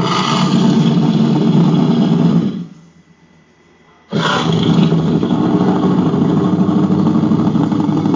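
Made-up kaiju roar sound effect: a deep, rough growling roar lasting about two and a half seconds, then after a short pause a second, longer roar that starts suddenly.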